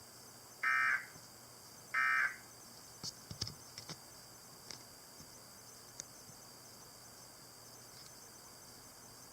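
Emergency Alert System end-of-message data bursts: two short, harsh digital screeches about a second apart, closing out the alert broadcast. A cluster of sharp clicks follows about three to four seconds in, with a few single clicks later over a faint steady hiss.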